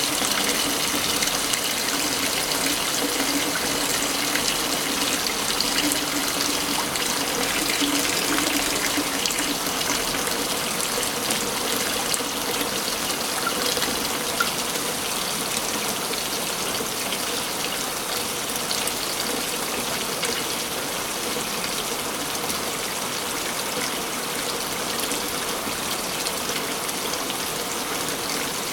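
Waterfall rushing steadily, a dense, even splash of falling water with no breaks.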